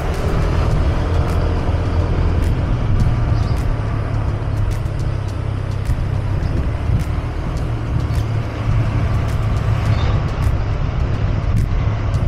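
Motorcycle engine running steadily under way, with road and wind noise and scattered short knocks.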